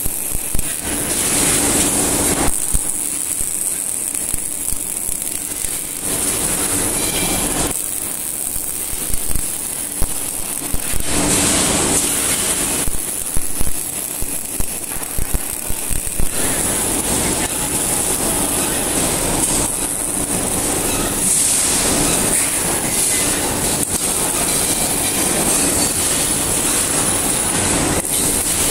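Wire-fed (MIG) arc welding: the robot's welding arc and a hand welder's arc hissing and crackling, the sound changing every few seconds as welds start and stop, with scattered sharp pops.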